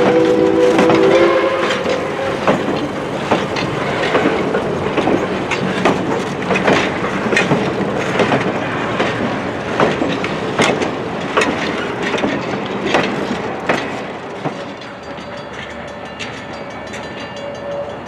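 Passenger coaches rolling past, their wheels clicking sharply and irregularly over the rail joints, growing fainter near the end as the train pulls away. At the start, Valley Railroad No. 40's steam whistle sounds a chord of several tones and stops about a second and a half in.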